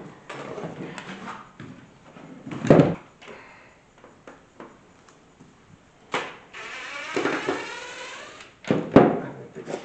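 Cordless drill running for about two seconds, its motor whine wavering in pitch, as it drives screws out of a plywood basement hatch cover. Sharp knocks of tools on wood come before it and again right after it.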